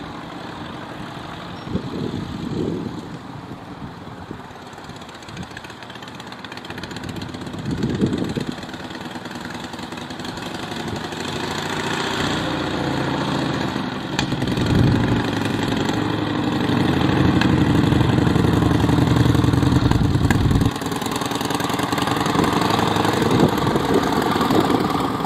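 1922 Matchless Model H motorcycle's V-twin engine running as the sidecar outfit rides away, turns and comes back past. It swells briefly about two and eight seconds in, grows much louder as it approaches, drops off suddenly about twenty seconds in, then builds again as it passes.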